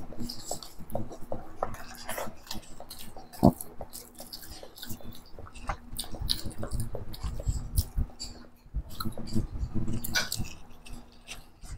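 Close-miked eating by two people: irregular wet chewing and lip smacks, with fingers mixing rice and chicken curry and biting into chicken leg pieces near the end. One sharp click stands out about three and a half seconds in.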